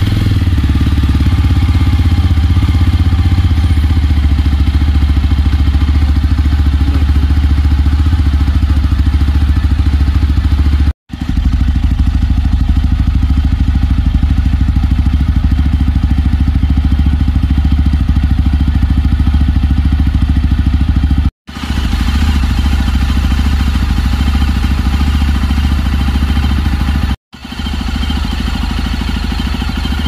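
Yezdi Roadster's single-cylinder engine idling steadily, heard at the exhaust. The sound cuts out abruptly three times for a moment and comes straight back.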